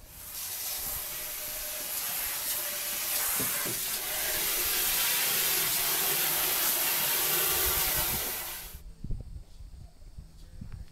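Water spraying hard from a garden hose nozzle at a sink: a steady hiss that builds over the first couple of seconds and cuts off suddenly about nine seconds in.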